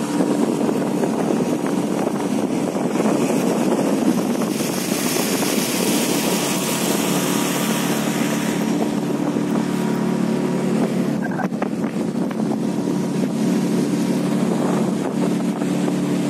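A 9.9 hp outboard motor running steadily at cruising speed, with a rush of wind and water that grows stronger for a few seconds in the middle.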